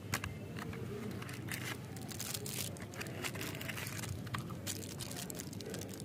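Small cardboard candy box being handled and opened, and a candy stick in a plastic wrapper pulled out: crinkling and rustling of card and cellophane in a run of quick, irregular crackles.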